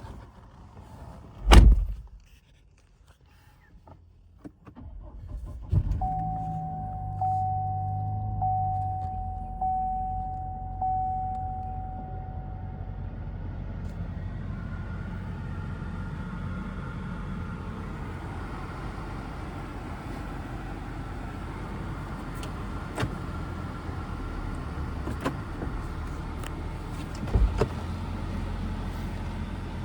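2014 Cadillac ATS: a single thud, then a few seconds later the engine starts and settles into a steady idle. A warning chime sounds about once a second for several seconds after the start, and there is another thud near the end.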